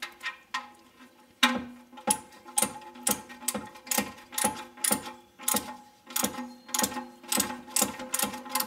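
Hand ratchet clicking at about two clicks a second as it runs the oil drain plug back into the oil pan.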